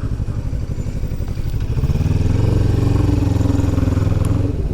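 Motorcycle engine running under way. About two seconds in it pulls harder, its pitch rising and then holding steady, and it eases off near the end.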